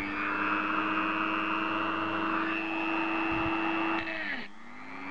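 Dremel rotary tool with a cut-off wheel running at full speed, grinding into the metal casing of a laser pointer for the first two seconds or so. The motor then winds down, falling in pitch about four seconds in, and starts spinning up again near the end.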